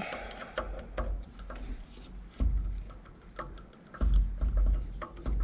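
Small metal clicks and taps of hand tools working on a truck starter motor as a screw is worked out, with low bumps of handling a couple of times.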